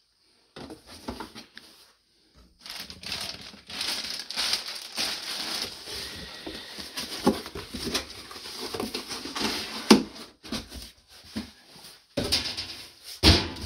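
Packaging and clothing rustling and crinkling as garments are handled, unfolded and set aside, with scattered small clicks and one sharper knock about ten seconds in.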